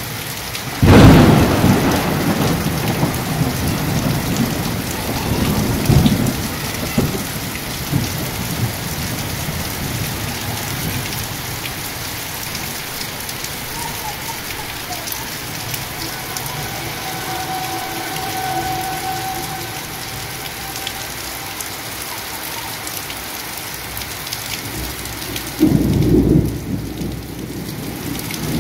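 Heavy rain falling steadily, with a sudden loud thunderclap about a second in that rolls away into a low rumble. Another rumble of thunder comes a few seconds later, and a loud peal near the end.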